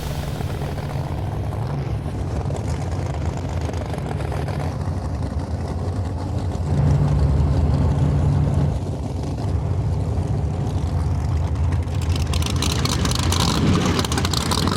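Drag-race car engines idling steadily, their note rising in level for a moment about seven seconds in. A rough, rapid crackling texture joins in the last few seconds.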